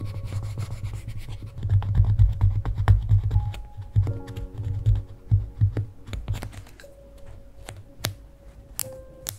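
A wooden sticker spatula rubbing over stickers on the paper of a Midori MD notebook, burnishing them down with scratchy strokes and small clicks. The rubbing fades after about six seconds.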